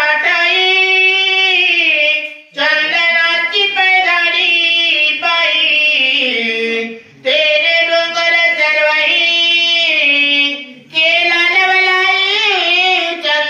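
A man singing a Marathi devotional ovi verse in a high, sustained, ornamented melody. It comes in four long phrases with brief breaths between them.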